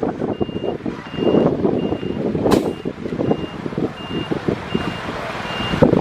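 Reversing alarm on heavy earthmoving machinery beeping steadily, about one beep every three-quarters of a second, over the machine's running and clattering; a sharp click about two and a half seconds in.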